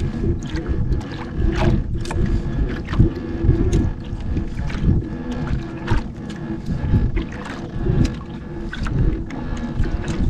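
Water slapping and sloshing against a small outrigger canoe's hull, with wind on the microphone and irregular knocks while a longline is hauled in by hand. A steady faint hum runs underneath.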